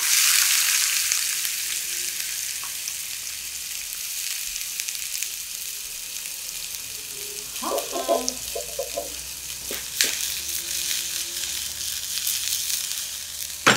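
Sliced red onion going into hot oil in an aluminium frying pan: a sudden loud sizzle that slowly eases into a steady fry.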